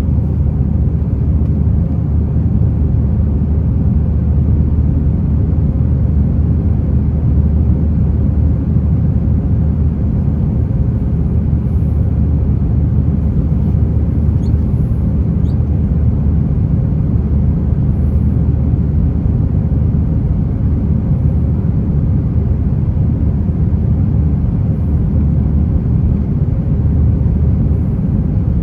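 Airliner cabin noise during departure: a steady, loud, low rumble of jet engines and airflow with no change in pitch.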